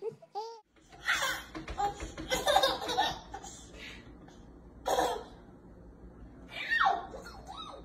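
A young child laughing in several bursts, with high squealing cries in between.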